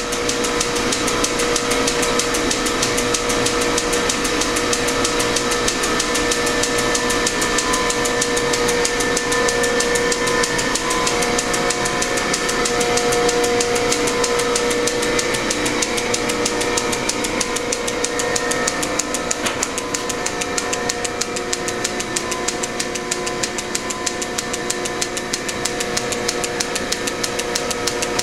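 1906 Hendey lathe running on its flat-belt drive from an overhead countershaft: a steady mechanical whine with a fast, even ticking.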